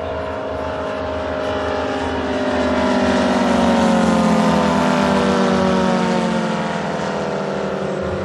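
Moki four-stroke radial engine of a large-scale RC North American AT-6 Texan model flying past: a steady drone that grows louder to a peak about four seconds in, then fades, its pitch sinking gently throughout.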